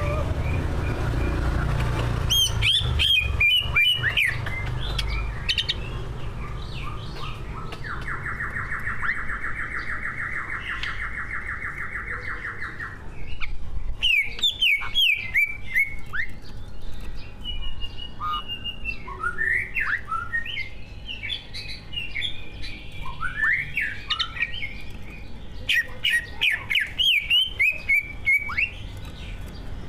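Cucak ijo (green leafbird) singing a varied, loud song of rapid chirps and sharp falling whistles, full of phrases learned from other birds. About eight seconds in it holds a buzzing trill for some five seconds.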